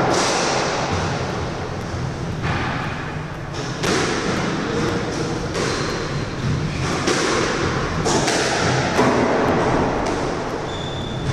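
Squash rally: the ball cracks off rackets and the court walls every second or two, each hit echoing around the enclosed court. A brief high squeak comes near the end.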